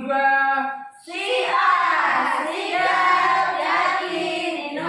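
A song: a held sung note ends about a second in, then singing starts over backing music with a steady low beat.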